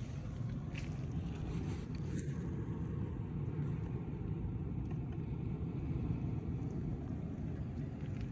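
Steady low rumble of seaside outdoor ambience: wind on the phone's microphone mixed with ocean surf, with a couple of faint brief ticks early on.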